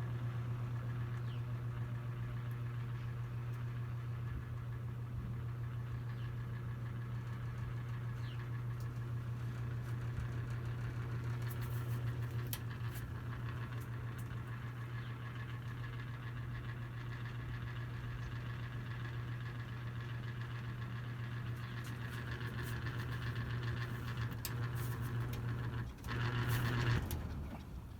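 Vintage Lasko box fan running on high: a steady motor hum with the rush of air from its blades. Near the end comes a short louder clatter, and the hum cuts off.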